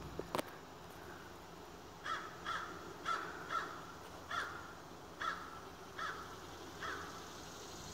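A bird calling outdoors: eight short calls, singly and in pairs, about one every half second to a second, starting about two seconds in. Two sharp clicks come just before.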